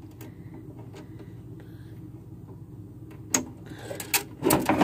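Plastic parts of a Breyer toy horse trailer being handled and knocked together: a couple of sharp clicks about three and a half and four seconds in, then a quick run of clicks and rattles near the end, over a steady low hum.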